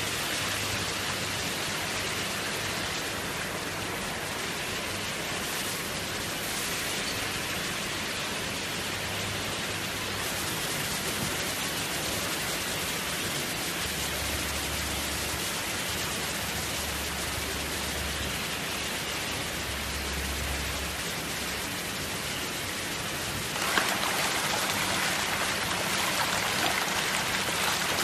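Steady rush and splash of water flowing into the tanks of a recirculating aquaculture system, under a low steady hum. About 24 s in it turns louder and brighter as a tank of fish thrashes and splashes at the surface.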